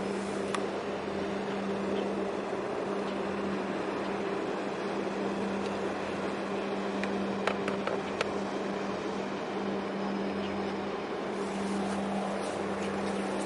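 Steady low drone of ship machinery, with a constant hum over a rushing noise, from a large container ship passing close by. A few faint clicks come about seven and a half to eight seconds in.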